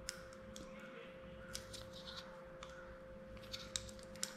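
Faint small plastic clicks from hands twisting and working the cap of a marine epoxy syringe, a few scattered ticks over a steady faint hum.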